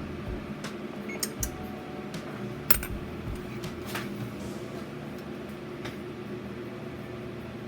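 A few sharp clinks and knocks of kitchen pans and utensils being handled, the loudest about halfway through, over a steady low hum.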